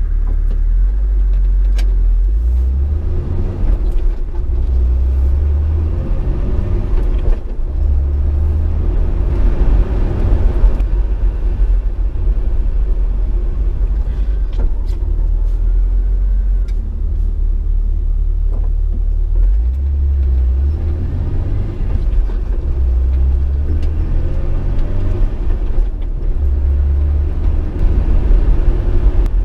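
Car driving along the road: a steady, heavy low rumble of engine and road noise, with a few faint rising whines as it speeds up.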